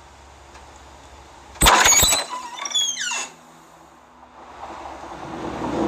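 A door latch clicks loudly, then the door's hinges creak in a few short squeaks as it swings open.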